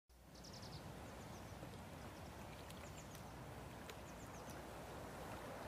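Faint outdoor background ambience: a low, steady hum of noise with a few faint, short, high-pitched chirps, a quick run of them about half a second in.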